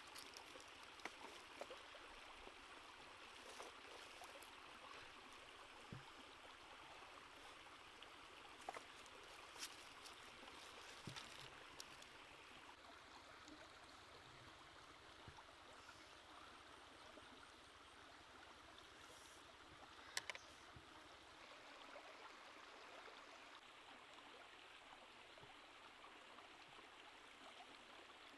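Shallow rocky stream running faint and steady, with a handful of small scattered clicks and taps.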